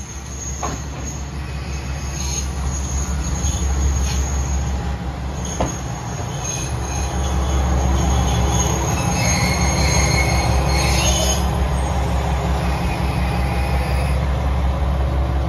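KiHa 120 diesel railcar pulling into the platform, its engine and running rumble growing louder as it draws near and passes close by. A couple of sharp clicks from the wheels come early on. About two thirds of the way through there is a high brake squeal as it slows to stop.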